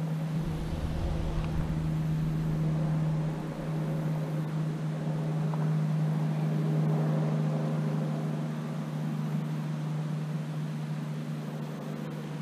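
A motor on the water running at a constant speed, giving one steady hum with overtones. There is a low rumble in the first couple of seconds.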